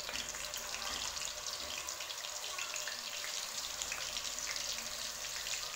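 Chicken and chana dal koftas frying in hot oil in a karahi, freshly dropped in: a steady sizzle with a dense, fine crackle.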